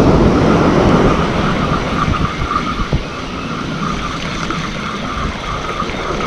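Wind buffeting the microphone over the wash of surf breaking on a sandy beach, gustier in the first second or so and then steadier, with a fluttering whir higher up.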